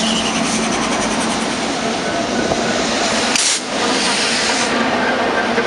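A string of CN diesel freight locomotives passes close by at speed: a steady loud rush of engines, wheels and rail. About three and a half seconds in comes a brief sharp burst of noise.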